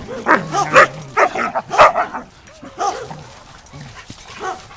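Dogs playing rough, giving a quick run of short barks and yips, about eight calls, loudest and most frequent in the first two seconds and fainter after.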